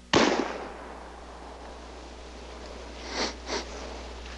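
A flintlock black-powder rifle fires once, a sharp shot that dies away over about half a second. A little after three seconds in come two short breathy sounds.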